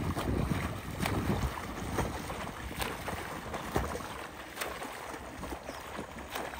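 Open-water swimmers in wetsuits doing front crawl, their arm strokes and kicks splashing and slapping the water in an irregular rhythm.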